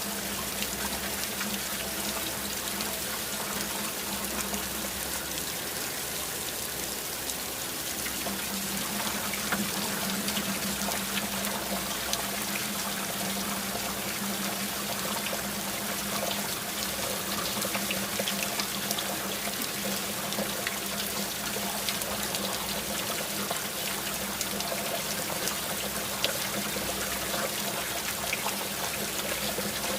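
Steady rain falling, with many scattered drop ticks and a trickle of running water.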